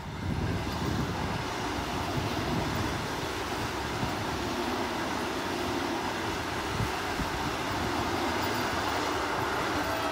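Vande Bharat Express electric trainset passing close at speed: a loud, steady rush of wheels on rails and rushing air as the coaches go by.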